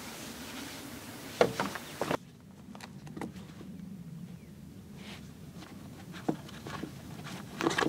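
Camp cookware being handled on a wooden slide-out table: scattered knocks and clicks of a pot, its lid and its padded carry bag, with a few footsteps on gravel and a cluster of clattering near the end. A steady background hiss cuts out about two seconds in.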